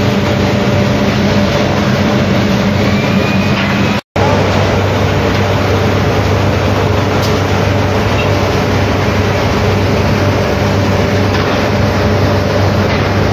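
Loud, steady din of a steel rolling mill at work, with a constant low machine hum under a wide noisy roar as red-hot bars are run through the stands. The audio cuts out for a moment about four seconds in.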